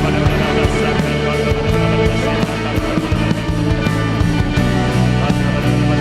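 Band music with guitar, sustained held chords and a steady drum beat.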